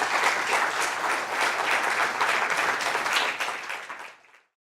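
A lecture audience applauding, many hands clapping at once. The clapping fades out about four seconds in and ends abruptly.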